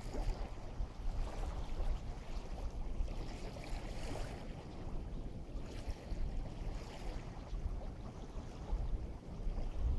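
Small waves washing on an inlet shore, with gusts of wind rumbling on the microphone.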